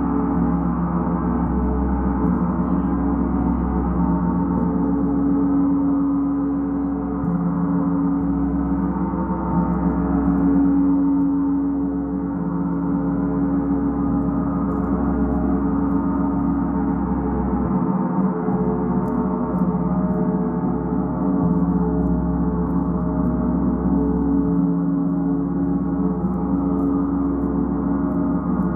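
Large suspended gong played continuously with a soft padded mallet: a dense, sustained wash of many overlapping ringing tones with a deep low hum beneath, rising and falling slightly in loudness but never stopping.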